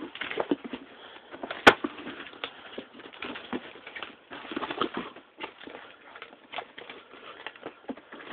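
Cardboard package being opened by hand: irregular rustling, scraping and crinkling of box and packing, with one sharp click about a second and a half in.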